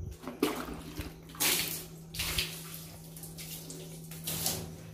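Water splashed from a bucket onto wet wooden boards in several bursts, the loudest about a second and a half in, over a steady low hum.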